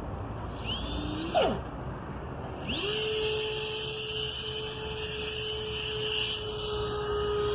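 A 70mm electric ducted fan whines. It is blipped briefly about a second in, then spools up near the three-second mark to a steady high-pitched jet-like whine that it holds.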